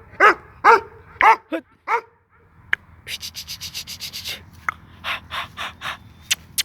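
Dog, a Shikari Gultair, barking five times in about two seconds. After that comes a rapid rhythmic rasping, about six strokes a second, then four slower strokes and a few sharp clicks near the end.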